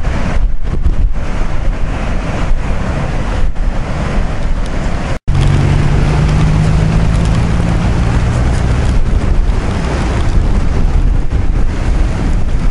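Strong wind buffeting the microphone over heavy storm surf breaking on a rocky shore. The sound cuts out for an instant about five seconds in, then resumes with a low hum underneath for a few seconds.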